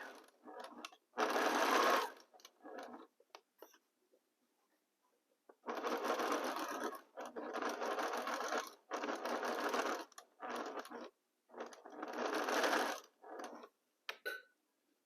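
Sewing machine stitching a seam in short runs of about a second each, stopping and starting, with a few soft clicks in the pauses.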